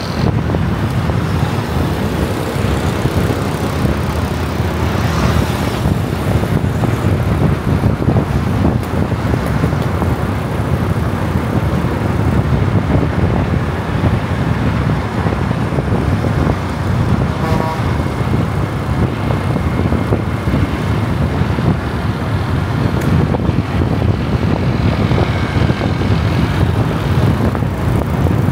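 Car driving through city traffic: a steady low rumble of road and engine noise, with a short higher tone about seventeen seconds in.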